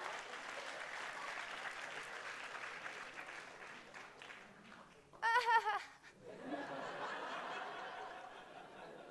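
Audience laughing and applauding, dying down around four seconds in. About five seconds in, a high wavering voice cries out for about half a second, then the laughter and clapping pick up again.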